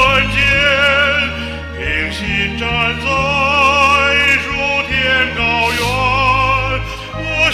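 A Chinese hymn sung in an operatic style with a wide vibrato over a steady instrumental accompaniment.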